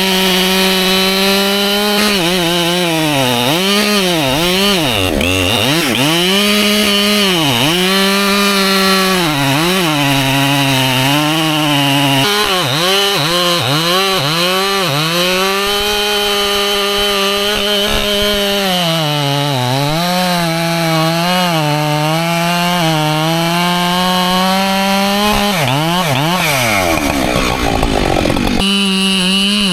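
Husqvarna chainsaw cutting white oak at high revs, its engine pitch sagging again and again as the chain loads up in the cut and recovering between. Near the end the revs drop steeply, then climb back.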